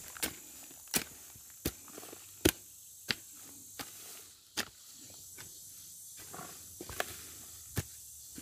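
Steel hoe blade striking and scraping into loose soil around a freshly planted banana sucker: about ten sharp, irregular knocks, roughly one a second, the loudest about two and a half seconds in.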